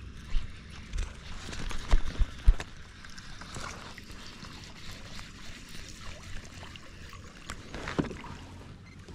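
Handling noises on a plastic fishing kayak: a cluster of sharp low knocks in the first few seconds as rod and gear bump the hull, light water trickling and lapping, and another knock about eight seconds in.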